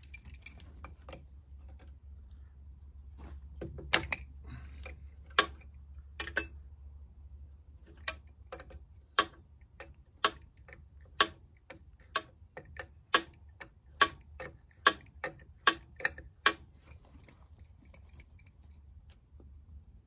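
Sharp metallic clicks from hand tools working on the pin of a backhoe blade's hydraulic cylinder: a few scattered clicks, then an even run of about two a second that stops a few seconds before the end.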